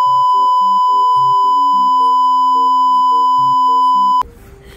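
A loud, steady 1 kHz censor bleep covering the speech, with a series of lower stepped synthetic notes beneath it. It cuts off abruptly about four seconds in.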